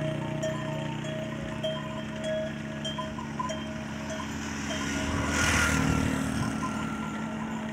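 Bells on a walking herd of cattle clinking and dinging irregularly, a few small rings a second. A swell of rushing noise rises and fades about five to six seconds in.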